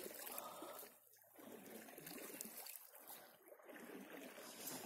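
Faint trickling and lapping of water, barely above near silence.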